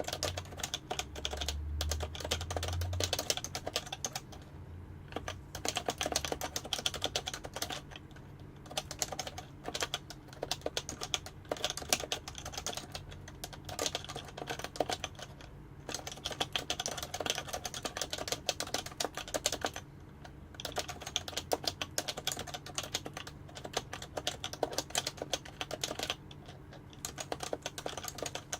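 Fast, continuous typing on an HHKB (Happy Hacking Keyboard) with Topre capacitive switches. The keystrokes come in quick runs, broken by a few short pauses.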